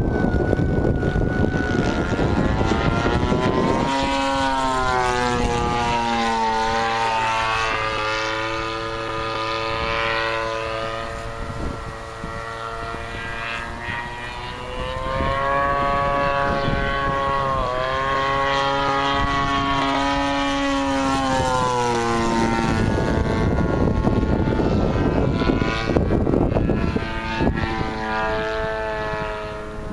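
Gas-powered engine and propeller of a radio-controlled float plane in flight. Its pitch swings down and up several times as the plane flies around. Wind rumbles on the microphone at the start and again near the end.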